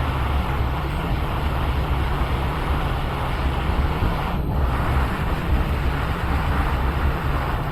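Steady rushing of blown air from a bench fan or blower, even and unbroken, heaviest in the low end.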